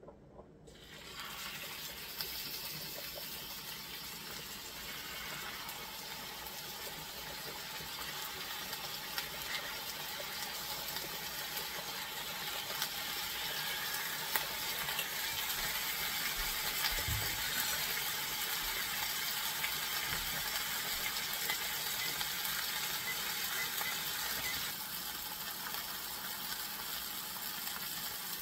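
Steaks searing in hot oil in a Le Creuset enameled cast-iron skillet: a steady sizzle starts about a second in as the first steak goes into the pan and grows louder over the first half as more steaks are laid in.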